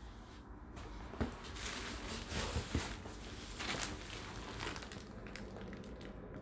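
Rustling and shuffling close to the microphone, with a sharp knock about a second in and a few lighter clicks, as a person shifts about and handles the camera.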